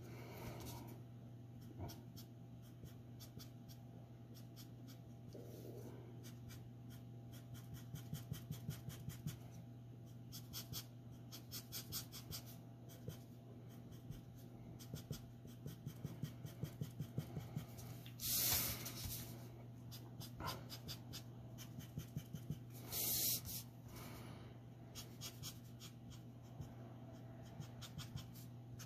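Copic marker nib scratching over paper in quick, short back-and-forth strokes. Two louder brushing sounds of about half a second each come about two-thirds of the way through.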